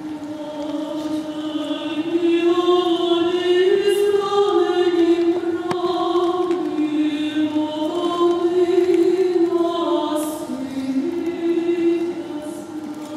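Female vocal quartet singing sacred music a cappella in slow, sustained chords, growing louder over the first couple of seconds and softer near the end.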